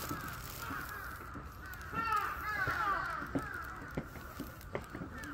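Crows cawing over and over, with the calls loudest about two seconds in. A few soft knocks come near the end.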